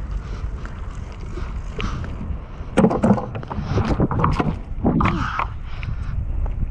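Full-suspension mountain bike ridden on asphalt: a steady low rumble of wind on the body-worn camera's microphone and the tyres on the road, with a run of clattering clicks and knocks from the bike a few seconds in.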